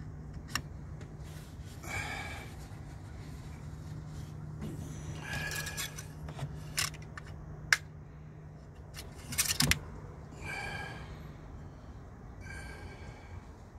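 Hands working under a car's hood: sharp plastic and metal clicks and light scrapes as the oil dipstick is handled, with a few short soft rustles of a rag wiping. A steady low hum runs underneath.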